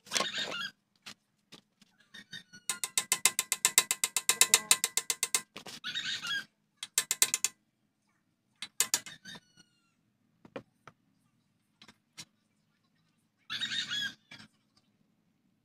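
Ratchet wrench clicking rapidly, about ten clicks a second for nearly three seconds, as a bolt on the motorcycle frame is turned. Short bursts of metal rattle and scraping from the tools and parts come before and after.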